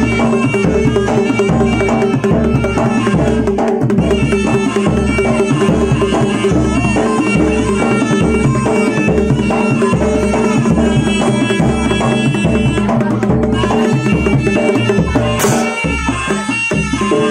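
Live jaranan ensemble music: traditional Javanese drums and percussion keeping a steady, repeating low beat under a reedy wind instrument's melody.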